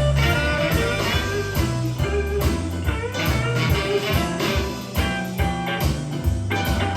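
Blues music with electric guitar over bass and drums, played back from a cassette tape recording.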